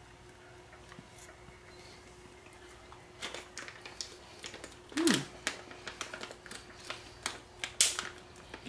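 People chewing dried kiwi slices: irregular small clicks and mouth smacks start about three seconds in, with a brief falling 'mm' about five seconds in.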